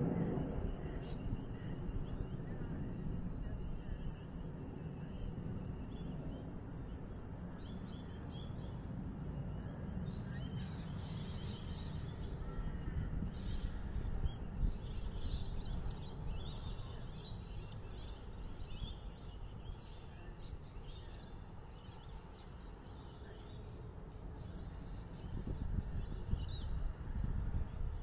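Many birds calling in short chirps, sparse at first and busy through the middle and later part, over a steady low background rumble and a constant high-pitched drone.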